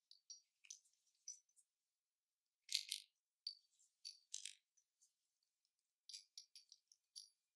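Faint small metal clicks and clinks of an Apeks US4 first-stage regulator's parts being handled as a new diaphragm and dry-seal chamber are pressed onto the body. The loudest clink comes about three seconds in, and a quick run of clicks comes near the end.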